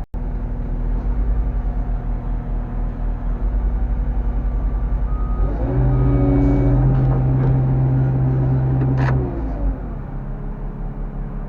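Roll-off truck's diesel engine running under load as its hydraulic hoist pulls a heavy dumpster aboard. About halfway through it revs up and holds higher for a few seconds, then drops back down.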